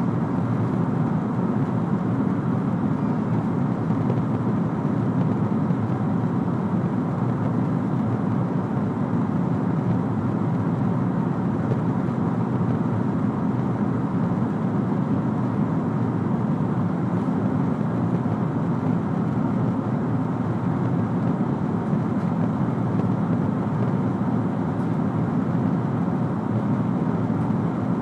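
Steady in-flight cabin noise of a Boeing 777-300ER: the even rumble and rush of its GE90 engines and the airflow over the fuselage, unchanging throughout with no separate events.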